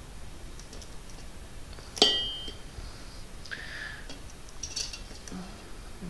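Aftermarket motorcycle exhaust silencer handled on the floor, with a single sharp metallic clink about two seconds in that rings briefly, and faint scraping and rustling afterwards.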